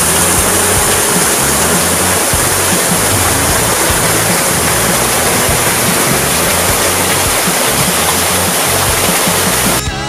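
Waterfall rushing down a rock face into a pool: a loud, steady hiss of falling water, with background music underneath. Both drop out briefly at a cut near the end.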